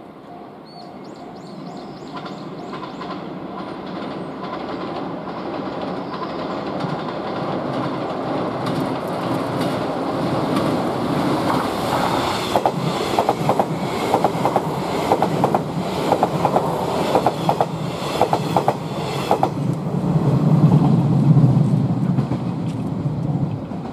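A JR West 381 series electric train passing on a steel girder bridge. Its rumble builds as it approaches, then comes a quick clickety-clack of wheels over rail joints while the cars go by. A deeper rumble peaks near the end and falls away suddenly.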